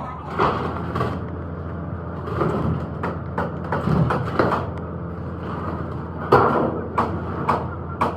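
Irregular metal clanks and knocks, several a second at times and the loudest about six seconds in, over a steady low mechanical hum.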